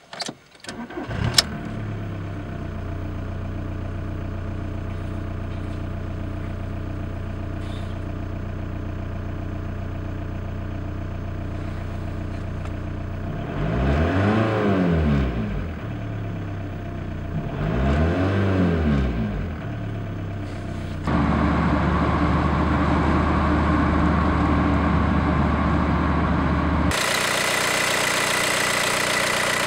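2001 VW New Beetle's 1.9 L four-cylinder TDI diesel engine cranked and started, then idling steadily, revved up and let fall back twice. Near the end it is heard up close in the engine bay, louder and brighter.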